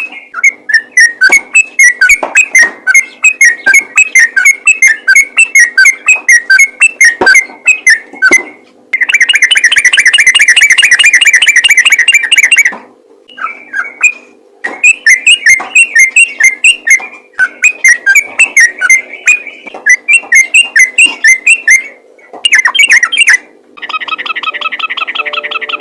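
Yellow-vented bulbul singing continuously in fast runs of bright chirping notes, about five a second, broken by short pauses. About nine seconds in it gives a dense, buzzy trill lasting some four seconds, and another starts near the end. A faint steady hum runs underneath.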